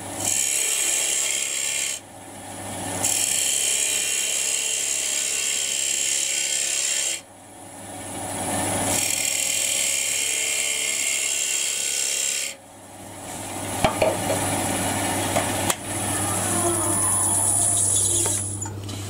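Wood lathe turning a small wooden box blank while a hand-held turning chisel cuts it: hissing, scraping passes a few seconds long, broken three times as the tool comes off the wood, over a steady low hum of the running machine. Near the end the cutting gives way to scattered light clicks and knocks as the tool is lifted away.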